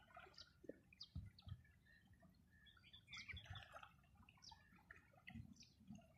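Faint bird chirps: several short high calls scattered over near silence, with a few soft low thumps.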